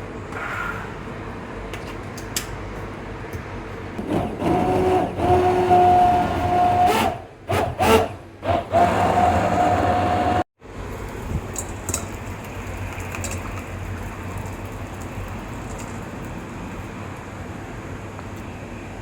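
Blender motor whining as it blends shrimp heads with water for stock, starting about four seconds in and stopping and restarting in short pulses. It cuts off abruptly past the middle, and a steady low hum remains.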